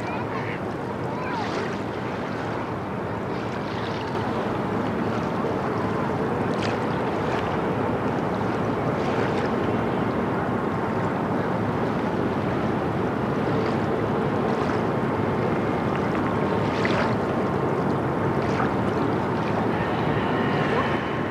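Diesel engine of an inland motor tanker running steadily as the ship passes, a low rumble mixed with the wash of water, growing a little louder after a few seconds. A few short high sounds stand out briefly above it.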